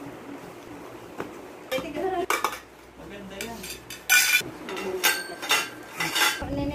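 Metal playpen frame tubes clinking and clattering against one another as they are picked up and laid down, in several separate bursts, some ringing briefly.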